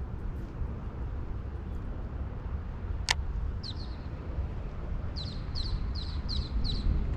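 A bird calling: one short chirp, then a run of five quick, falling high calls, about three a second, in the second half. A steady low wind rumble on the microphone runs under it, and there is one sharp click about three seconds in.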